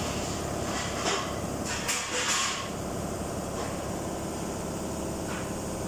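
Steady machine hum, like a running engine in the background, with a brief rustle and scrape about two seconds in as the oil dipstick is handled.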